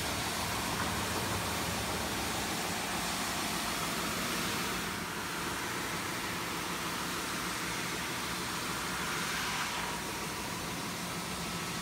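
Large industrial drum sander running with a steady noise, sanding walnut panels down to final thickness. The sound shifts slightly about five seconds in and again near ten seconds.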